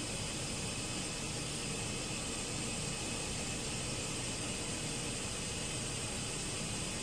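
GE Profile top-load washer filling with water for its rinse cycle: a steady hiss of water running into the tub.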